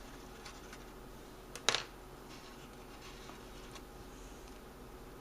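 Scissors cutting coffee-filter paper: faint paper rustling and scraping, with one sharp double click a little over a second and a half in.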